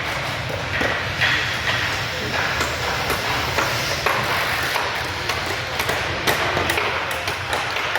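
Carpentry work din: scattered hammer blows and knocks on lumber from several people working at once, over a steady low hum and background voices.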